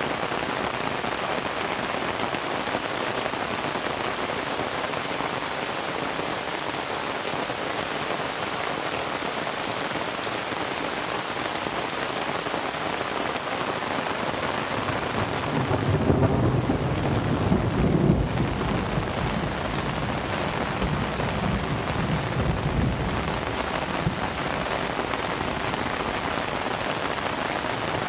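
Heavy rain pouring steadily, with thunder rumbling low for several seconds from a little past the middle, loudest at its start.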